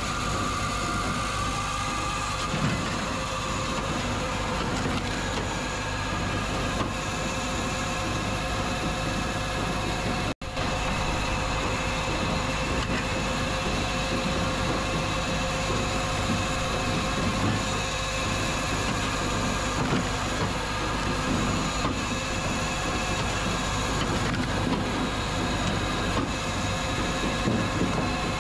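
Tractor engine running steadily with machinery working, broken once by a brief cut-out about ten seconds in.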